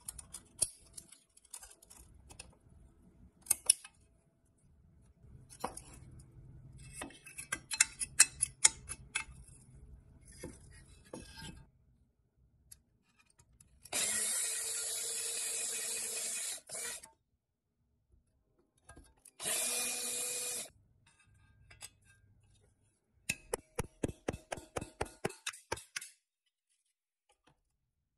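Power drill drilling out a rivet in a rusty pressed-steel toy truck bracket, in two runs of a few seconds each with a steady whine. Before the drilling come sharp metal clicks and clinks as the parts are handled. Near the end comes a quick run of light even taps, a punch being struck to drive the drilled rivet out.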